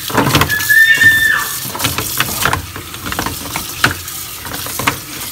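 Raw oysters being washed under a running tap in a plastic bowl: the shells knock and scrape against each other in many short clacks over the splashing water. There is a brief high squeak about a second in.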